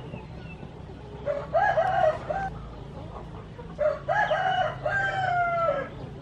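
A rooster crowing twice, the second crow longer and dropping in pitch at its end.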